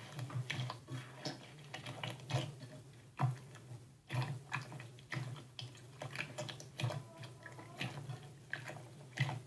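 Slime being squeezed and poked by hand, making many irregular clicks and pops over a low steady hum.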